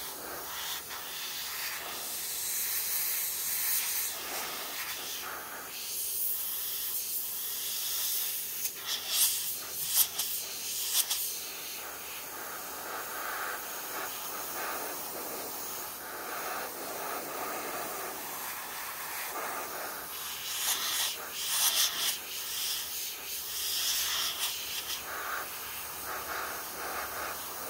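Airbrush spraying paint: a hiss of air and atomised paint that swells and fades in stretches as the spray is worked on and off.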